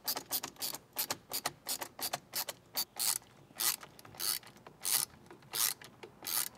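A hand screwdriver clicking in short ratcheting runs, about two a second, as it tightens the screws holding a steering wheel trim piece.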